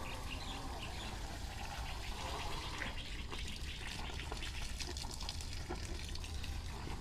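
Faint, steady water-like hiss with scattered light ticks.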